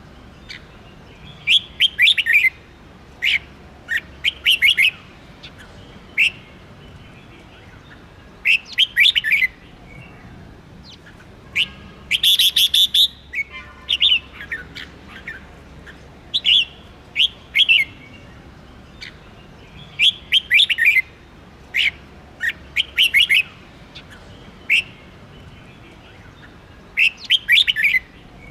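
Red-whiskered bulbul singing: short phrases of quick, clear, swooping notes, coming every second or two, with a louder, harsher burst about twelve seconds in.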